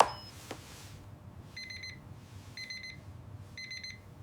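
Electronic alarm beeping: short bursts of rapid high beeps repeating about once a second, preceded by a sharp click and a second fainter click at the start.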